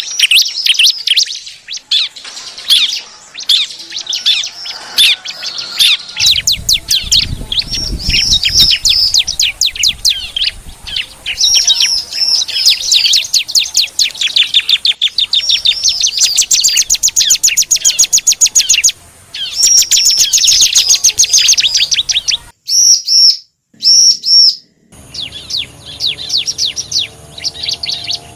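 Ciblek (bar-winged prinia) song from a lure recording: rapid, repeated high chirps and trills. It breaks off twice briefly about 23 seconds in, then carries on more faintly over a low hum.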